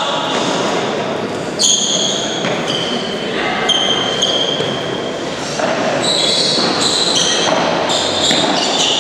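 Padel rally in an echoing indoor court: a padel ball struck by paddles and bouncing off the floor and walls, with a sharp hit about one and a half seconds in.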